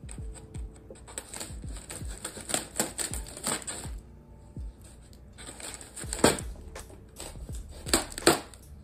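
Styrofoam packing block being cut and pried apart by hand: an irregular run of crunches and squeaky cracks, the sharpest about six seconds in and twice more near the end.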